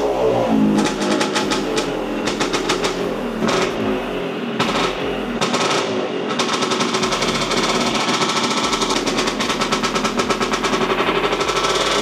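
Quattrini 244cc two-stroke engine of a Vespa PX running on a dyno at low revs off the throttle, firing in rapid, uneven pops through its expansion-chamber exhaust. The popping settles into a faster, steadier beat in the second half and the revs start to climb near the end.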